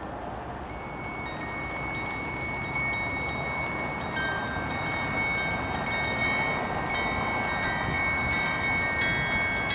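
Church bells of Saint Sofia's bell tower ringing, several bells struck again and again so that their tones ring on and overlap, over a steady background hiss.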